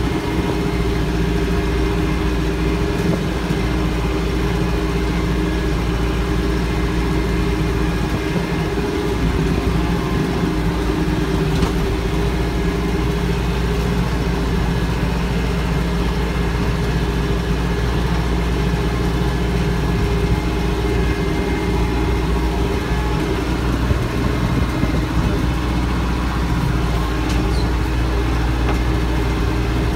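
Branson 4520C tractor's diesel engine running steadily under load with the PTO mower engaged, heard from the operator's seat.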